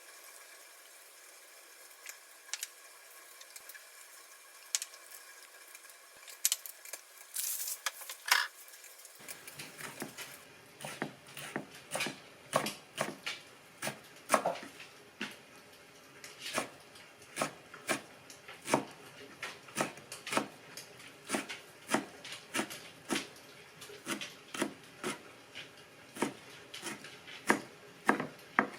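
Kitchen utensils and dishes knocking: a few scattered clinks and a short rustle, then from about nine seconds in a steady run of sharp knocks, about two a second.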